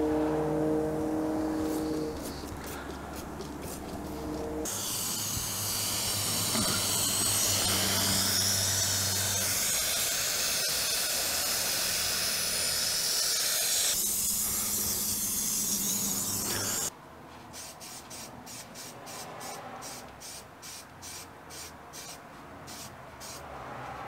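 Water from a garden-hose spray nozzle hissing steadily as it rinses a cone air filter. It starts about five seconds in and cuts off suddenly near seventeen seconds, over background music with a steady beat.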